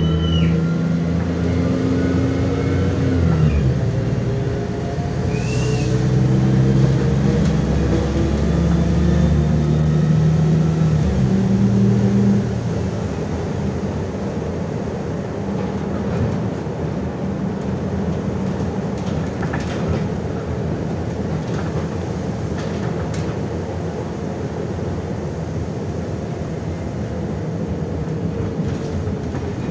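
MAZ-105 city bus heard from inside while driving. The diesel engine's drone climbs and drops as the gearbox shifts up, about 3.5 and 12 seconds in. It then settles into a steady rumble of engine and road noise with a few light rattles.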